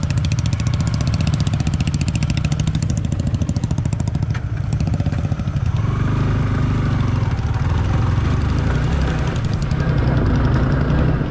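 Single-cylinder motorcycle engine running at low revs on a rough off-road track. A short click comes about four seconds in, and the engine sound grows fuller and a little louder about six seconds in.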